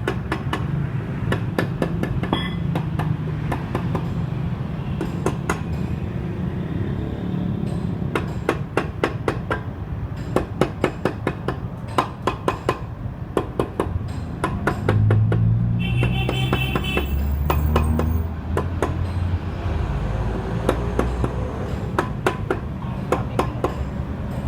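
Repeated sharp metal taps and knocks from hand work on a Honda Spacy scooter engine, coming in quick runs and loudest in the middle, over a steady low hum.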